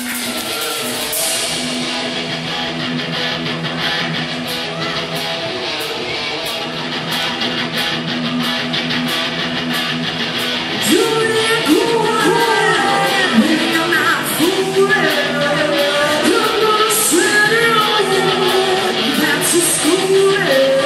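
Live rock band playing loud electric guitar over a drum kit with regular cymbal strokes. The band gets louder about eleven seconds in, as repeated bending melody lines come in.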